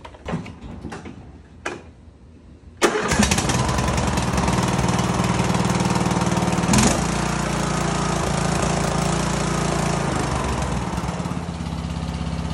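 A few light clicks, then the Briggs & Stratton engine of a Troy-Bilt Pony riding mower starts abruptly about three seconds in and runs steadily on its newly replaced carburetor, with a brief rise near the middle and settling slightly lower near the end.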